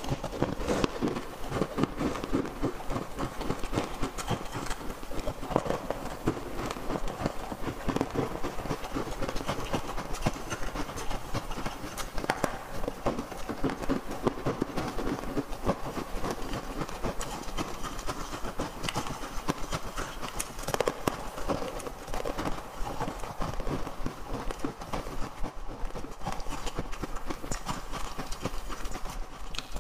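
Chewing and crunching on chunks of ice coated in green powder, close to a clip-on microphone: a dense, irregular run of crisp cracks and crunches that goes on without a break.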